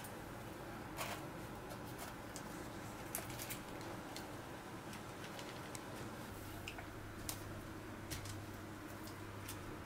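Quiet food-handling sounds: scattered soft clicks and crackles as hands press flaky baked puff-pastry strips down onto mascarpone cream and a silicone spatula smooths the cream, over a steady low hum.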